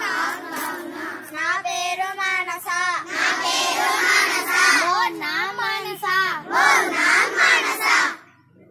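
A group of young children chanting phrases together in a sing-song chorus, in Odia, breaking off shortly before the end.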